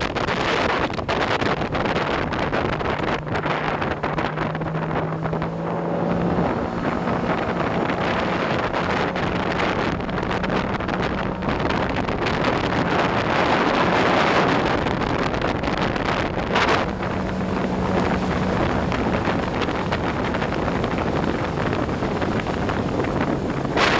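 Sea-Doo Speedster jet boat running under way. Its engine tone steps up in pitch a few seconds in and then holds steady. Heavy wind buffeting on the microphone and the rush of water cover much of the engine.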